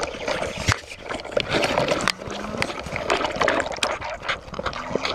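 A young calf sucking hard on a milk bottle's nipple, recorded right at the bottle: wet slurping and gurgling of milk, with many irregular sharp clicks as it pulls and sucks.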